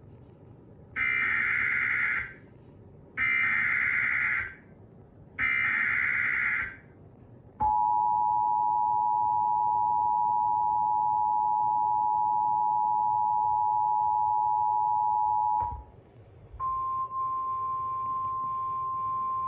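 Emergency Alert System tones opening a severe thunderstorm warning. First come three short bursts of screechy SAME digital header data, then the two-tone EAS attention signal held for about eight seconds and cut off sharply. After a brief gap, a single steady NOAA Weather Radio alert tone begins.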